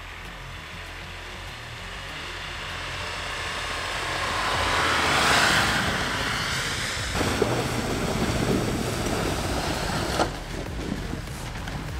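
Mitsubishi L200 pickup's engine running as it drives through deep snow, its tyres churning snow, swelling to a pass-by about five seconds in and then fading. After an abrupt change, a pickup engine runs under load climbing out of a stream, with rushing water behind it.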